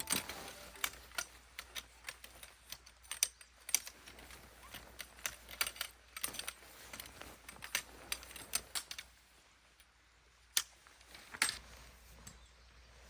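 Scattered light clicks and taps at an uneven pace, a few a second. They pause about nine seconds in, and two more follow.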